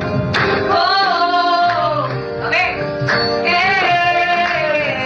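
A woman singing a melody with wavering, held notes over musical accompaniment.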